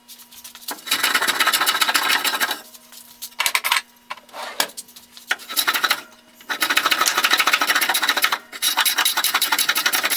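A rasp scraping across wood in several long strokes with short pauses between them, shaping a wooden vise chop down to size.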